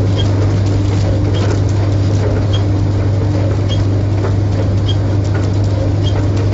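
Tumble dryer running with a steady hum and a faint tick about once a second as the drum turns, drying a load of soggy banknotes.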